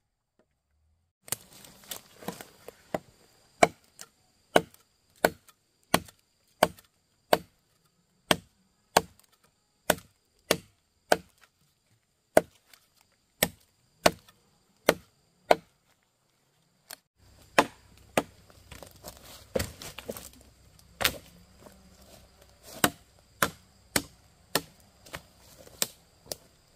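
Firewood being chopped by hand with a blade: sharp, regular strikes about one and a half a second. After a short break about two-thirds of the way through, the chopping carries on.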